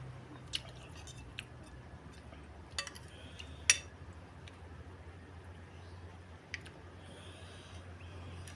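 Cutlery clinking against a bowl during eating: a few sharp, separate clinks, the loudest near the middle, over a low steady hum.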